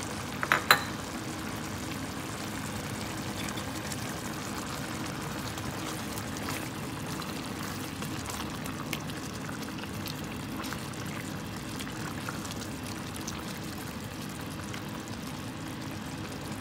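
Beef and zucchini stew simmering in a pot: a steady bubbling hiss, with a couple of sharp knocks just under a second in.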